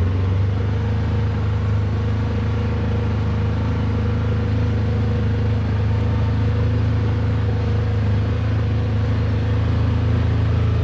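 A vehicle's engine running steadily at an even speed, a constant low hum with no change in pitch.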